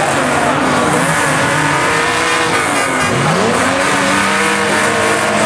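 Several banger racing cars' engines revving hard, one climbing steeply in pitch about three seconds in. Tyres squeal as one car spins its wheels, shoving against another.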